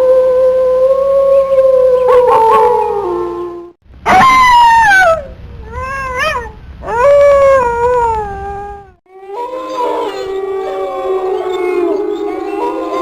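Wolves howling: a long single howl that dips in pitch at its end, then a howl that starts high and falls, a short wavering one and another falling howl, each broken off suddenly. From about nine seconds in, several wolves howl together in an overlapping chorus.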